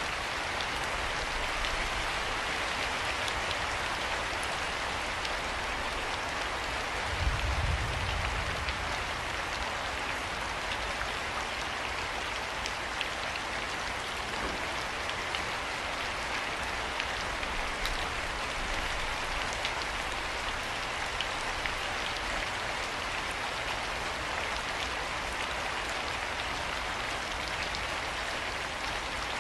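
Steady rain falling, an even hiss with scattered drop ticks. A brief low rumble rises and fades about seven seconds in.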